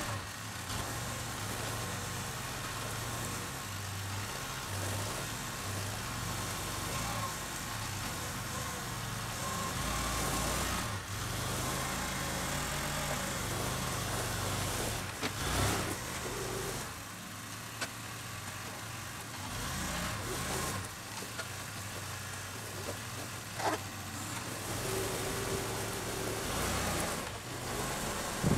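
Small farm tractor's engine running at low revs while its front loader lifts and carries a pallet of firewood, with a few sharp knocks along the way.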